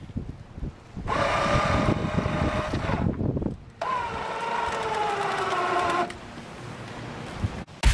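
A motor running with a whine in two bursts of about two and a half seconds each, the second one sliding slowly down in pitch.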